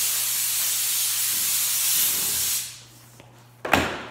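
A loud, steady hiss of rushing noise that fades out a little past halfway, followed by a single sharp knock near the end.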